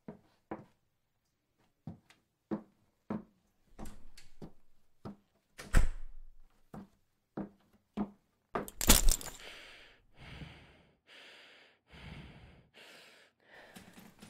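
Steady footsteps, a little under two a second, then a door shutting with a heavy thud about nine seconds in, followed by several short breathy sounds.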